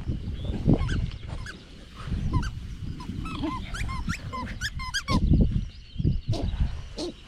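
English bulldog puppies playing, giving many short high yips and whines with low growls underneath, and a few sharper yelps near the end.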